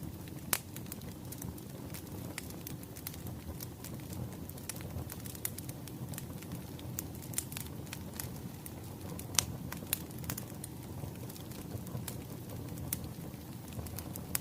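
Wood fire crackling: a steady low rumble dotted with irregular sharp pops and snaps, two of them louder, about half a second in and about nine seconds in.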